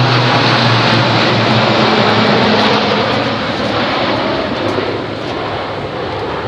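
A formation of RAAF Roulettes Pilatus PC-9/A single-engine turboprops flying overhead with a steady propeller drone. Its pitch falls as they pass, then it fades slowly as they fly away.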